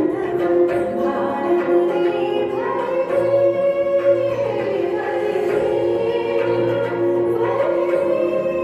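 Music for an Odissi dance: female voices singing a melody over drum strokes.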